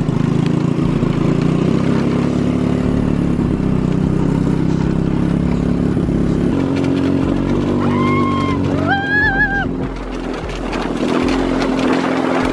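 Open off-road buggy's engine running steadily while driving, with road and wind noise. Two short high-pitched tones sound about eight and nine seconds in.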